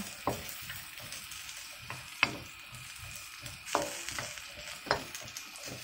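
Diced yam, mushrooms and dried prawns sizzling in oil in a steel wok while a wooden spatula stirs them. The spatula knocks and scrapes against the wok about four times, loudest about two seconds in.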